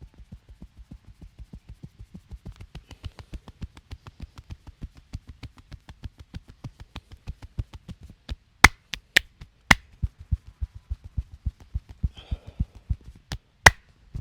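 Hands patting rapidly on the body in a percussive massage, about five strokes a second, growing a little louder. Sharp, loud cracks break in: three in quick succession near the middle and two more near the end.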